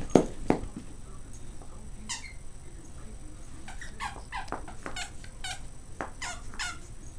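Stuffingless plush squeaky toy squeaking as a Jack Russell terrier chews and shakes it: two loud thumps just after the start, a single squeak about two seconds in, then a quick run of short squeaks through the second half.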